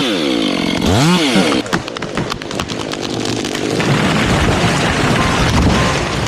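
Chainsaw engine revving up and down as it cuts, its pitch rising and falling repeatedly. From about two seconds in, the engine gives way to a dense, rough noise full of cracks and knocks.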